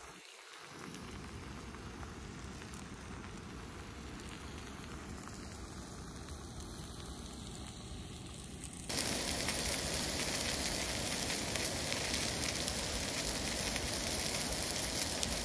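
Thick steak sizzling in a pan on a camping gas stove: a steady hiss that becomes suddenly much louder about nine seconds in.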